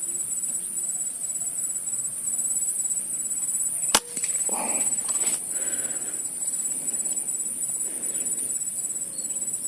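A single sharp rifle shot about four seconds in, over a steady high-pitched insect drone.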